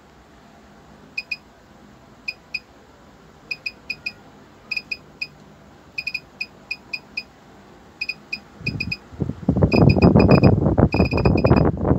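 Sunshine bench power supply giving short, high electronic beeps in irregular runs as its voltage knob is turned step by step. From about nine seconds in, a loud crackling rustle covers the beeps.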